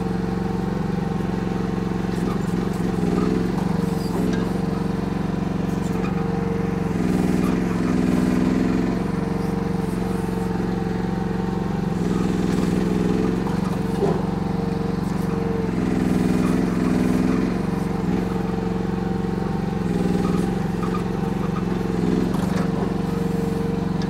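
Kymron YH14 mini excavator's engine running steadily while the machine digs a trench with its boom and bucket. Its note changes every second or two as it works.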